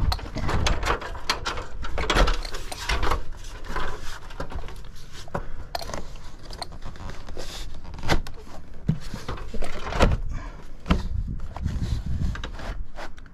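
Vinyl siding panel being handled and worked into place on the wall: plastic rubbing and sliding, with irregular clacks and a few heavier knocks.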